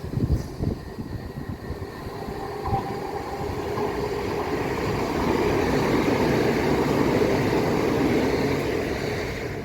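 Electric commuter train running along the track, its wheels giving a few knocks over rail joints in the first few seconds, then a rumble of rolling noise that swells and eases off near the end.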